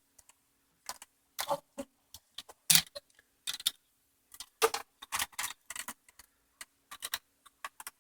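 Irregular light clicks and knocks of hard plastic parts being handled, as the Roomba's motherboard and its wiring are fitted back into the robot's plastic case.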